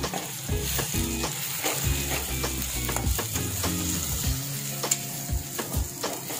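A steel spoon stirring and scraping onions and crushed black pepper paste around a stainless steel pan, with repeated clinks and scrapes against the metal over a sizzle of hot oil. Background music plays underneath.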